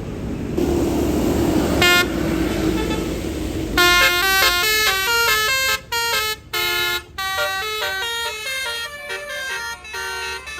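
A tour bus's Basuri telolet horn, a multi-trumpet air horn, playing a quick tune of short notes that change pitch one after another from about four seconds in. Before the tune there is one short toot near two seconds over steady vehicle rumble.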